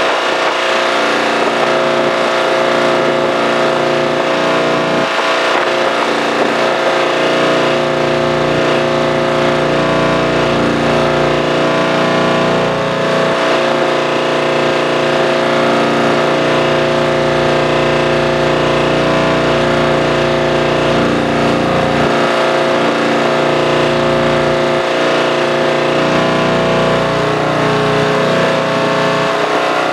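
Kubota M6-141 tractor's engine running at a steady speed, with a low rumble that swells and drops every few seconds.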